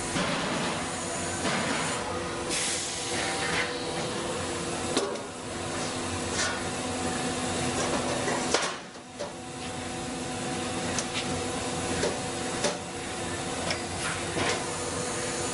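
CNC press brake running in a metal shop: a steady machine hum with hiss, broken by a few sharp knocks as the sheet metal is handled at the tool. The sound drops out briefly about nine seconds in.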